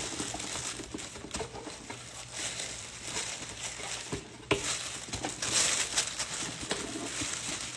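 Rustling and crinkling of plastic packaging being handled while merch orders are packed, with scattered small clicks and one sharp knock about four and a half seconds in.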